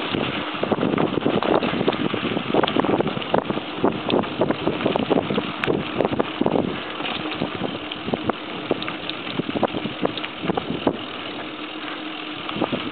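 Mountain bike rolling over a bumpy dirt trail: tyre noise on the loose surface, with frequent rattles and knocks from the bike over the bumps, busiest in the first half. Wind is on the microphone.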